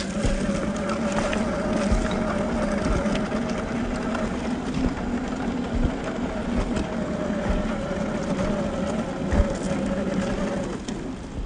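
Electric motor and gearbox of a 1/10-scale SCX10 II–clone RC rock crawler whining steadily as it drives over gravel, with small clicks and crunches from the tyres on the stones. The whine stops shortly before the end.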